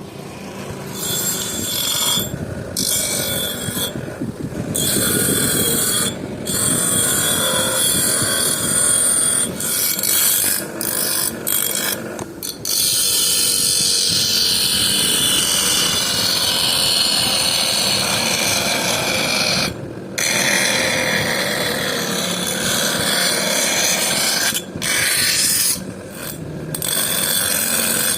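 Steel knife blade being worked against an abrasive during sharpening: a steady harsh grating that stops briefly several times and starts again.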